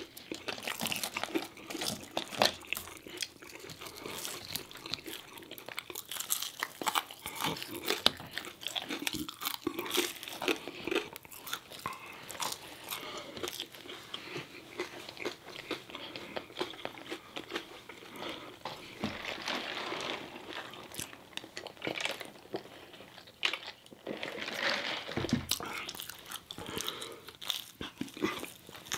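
Two people chewing and biting into McDonald's chicken nuggets and french fries, with many small crisp crunches and wet mouth sounds that keep coming irregularly.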